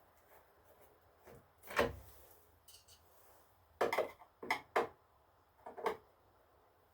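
Scattered light clinks and knocks of a hand tool working small screws out of an engine's plastic cover: one knock about two seconds in, then a quick cluster of clinks from about four to six seconds in.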